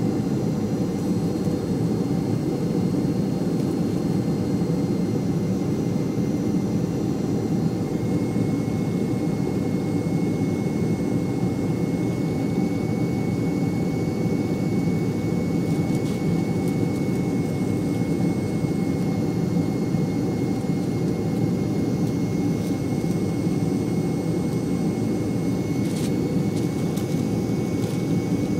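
Steady drone of an airliner's engines and rushing air heard inside the passenger cabin during the descent to land, with a faint steady high whine over it. One faint click near the end.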